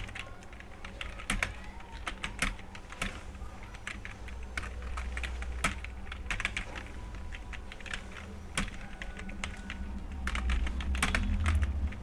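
Keys being typed on a computer keyboard during a timed typing test: a fast, irregular stream of key clicks.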